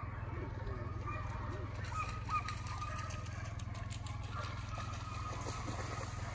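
A steady low engine hum, as of a vehicle idling, with faint distant calls and two short chirps above it about two seconds in.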